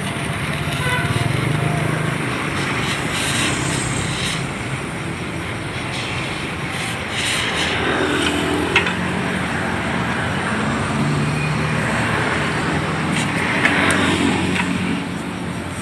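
Motor vehicles running, with engine noise that swells twice as vehicles go by, and a single sharp click about nine seconds in.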